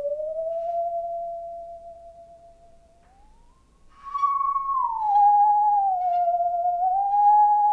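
Musical saw being bowed, singing a slow melody of long, pure notes that slide from pitch to pitch. It fades almost away around three seconds in, then swells back louder on a higher note and glides down through the rest of the phrase.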